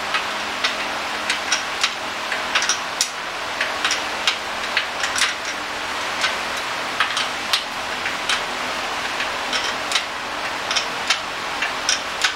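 Hand tools and metal engine parts clicking and tapping irregularly during engine disassembly, about two to three sharp, metallic clicks a second, over a steady hiss.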